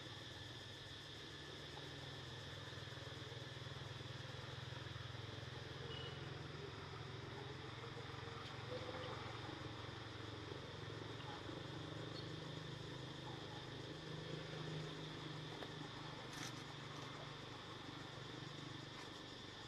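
Faint steady outdoor background: a low rumble with a few steady high tones above it.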